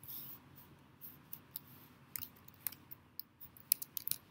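Computer keyboard keys clicking in irregular, faint taps: someone typing.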